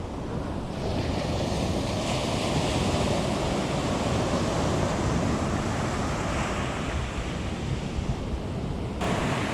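Ocean surf washing onto the beach, with wind buffeting the microphone as a steady rushing noise that grows louder about a second in.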